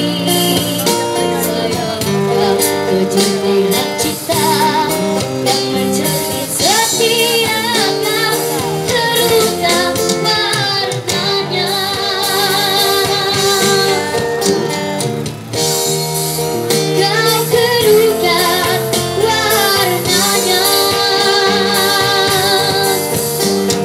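A young girl singing amplified through a PA speaker, holding long notes with vibrato, over a live band accompaniment of acoustic guitar and keyboard.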